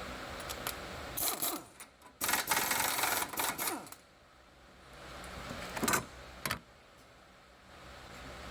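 Metal tools clicking and clattering during wheel-hub work, with a loud harsh burst of mechanical noise lasting about a second and a half a couple of seconds in, and two sharp clicks near the end.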